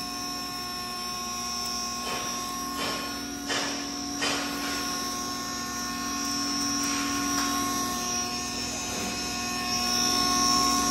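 A stoneless pulverizer grain grinder with its blower running at speed, giving a steady high whine and hum. Several short knocks and rattles come in the first half.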